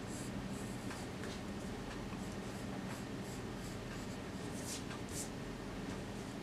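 Graphite pencil scratching across drawing paper in short sketching strokes, two of them stronger about four and five seconds in, over a steady low hum.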